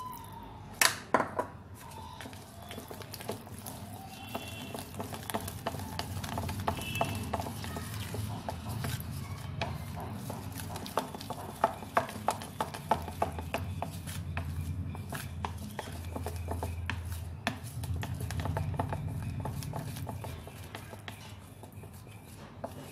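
Wooden spatula stirring thick cake batter in a plastic bowl, with many small clicks and knocks of the spatula against the bowl's side. Freshly added milk is being worked into the batter to break up lumps.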